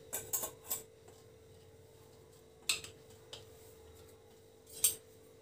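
A few faint clicks and taps of kitchen utensils being handled, scattered through, over a steady faint hum.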